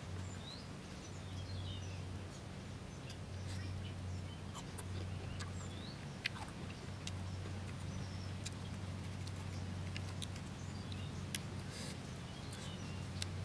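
Star fruit being sliced with a small knife and chewed, heard as scattered short crisp clicks, with birds chirping now and then and a steady low hum underneath.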